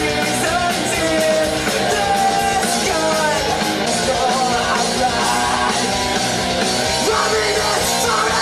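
Male lead vocal sung hard over a loud punk-rock backing track. Near the end the voice climbs in pitch.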